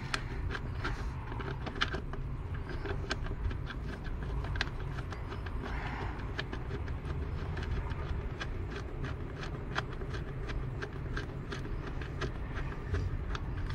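Ratchet wrench clicking in quick, uneven runs while a socket turns bolts loose on a metal bracket, over a steady low background rumble.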